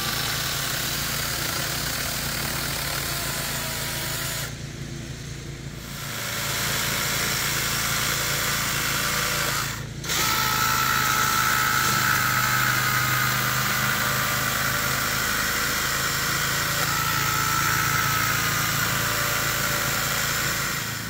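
Small cordless chainsaw running as it carves detail grooves into a cedar stump, its motor whining steadily. The whine eases off for a moment about five seconds in and cuts out briefly about ten seconds in before picking up again.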